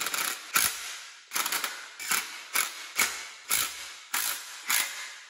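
Cordless DeWalt impact driver run in short bursts, about two a second, as it spins in and snugs down the water pump bolts on a Honda D16 engine block.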